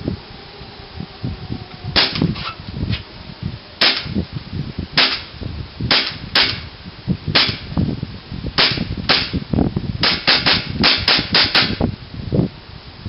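KWA MP9 gas blowback airsoft submachine gun firing: sharp cracks of released gas and the bolt cycling back, shot after shot about half a second to a second apart, then a quick string of about seven shots about ten seconds in.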